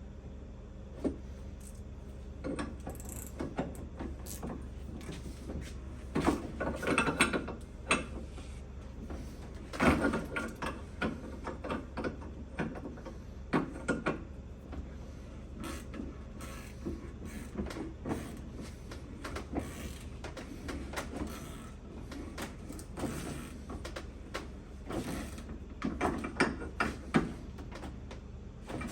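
Irregular metal clinks, knocks and scrapes of a Rock Krawler control arm being handled and worked at a shop press after its bushing was pressed, with a steady low shop hum underneath.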